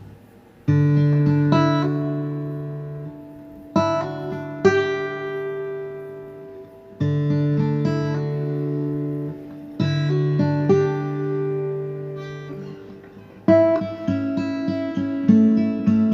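Acoustic guitar music: slow strummed chords, one about every three seconds, each left to ring and fade, with quicker picked notes near the end.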